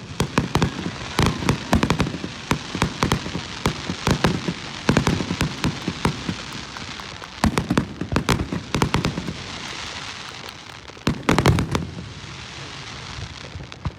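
Fireworks going off in quick succession: sharp bangs and deep booms of bursting shells over a dense crackle, heaviest in clusters through the middle and tapering to a fading crackle near the end.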